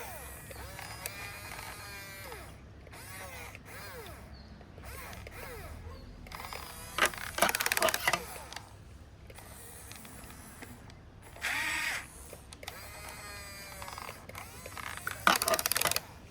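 Small geared electric motors of a toy RC excavator whirring in short runs, their whine rising and falling in pitch as the arm and bucket move. Two louder noisy bursts come about seven and fifteen seconds in.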